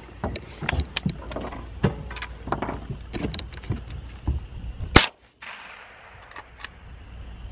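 Short metallic clicks and knocks of a gun being handled, then a single loud gunshot about five seconds in.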